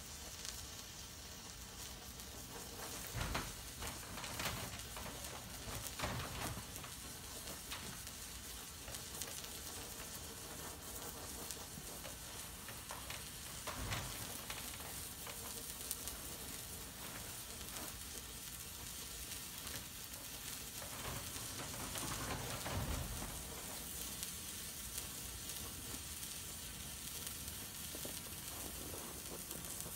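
Homemade white flare of potassium nitrate, sulfur and flake aluminium burning with a steady sizzling hiss, now and then spurting louder for a moment.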